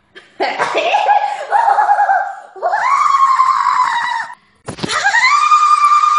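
A girl shrieking in long, high-pitched squeals, three in a row. The second rises and holds. The last follows a knock and is drawn out high and steady.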